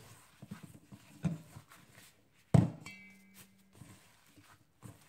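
Cold ground chicken being kneaded by a gloved hand in a stainless steel bowl with sausage seasoning: irregular wet squelches and slaps, with one loud thump about two and a half seconds in and a brief low hum just after it.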